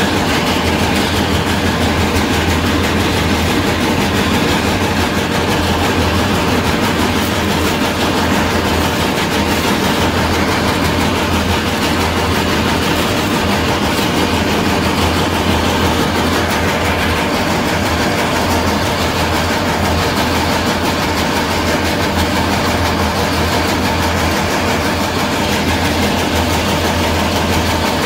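Diesel engines running steadily just above idle, one of them the Kubota tractor driving the auger, while the auger turns and range cubes rattle through its hopper.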